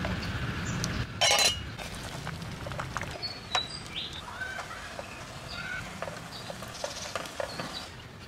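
Sweet potatoes handled in a metal pot of water: a splash about a second in, then light knocks and clinks against the pot, with a few short high chirps in the background.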